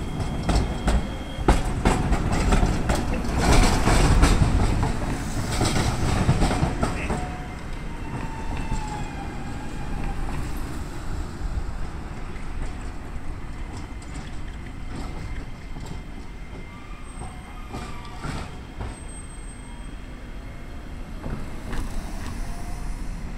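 Iyo Railway streetcar running through a street-track junction. Its wheels clatter and knock over the crossings and points for the first several seconds, loudest around four seconds in. After that the running is quieter, with thin, high wheel squeals coming and going as it rounds the curve.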